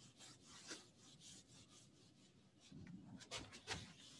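Faint scratching and rubbing of writing on a board, with a few short, louder strokes about three and a half seconds in.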